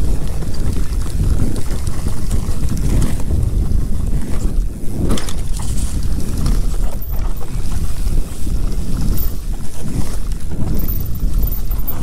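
Wind buffeting the microphone over the steady rumble and rattle of an electric mountain bike riding fast down a rough dirt trail, with a few sharper knocks.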